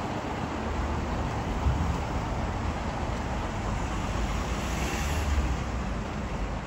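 Steady rumble and rushing noise of a train running by, with no distinct exhaust beats.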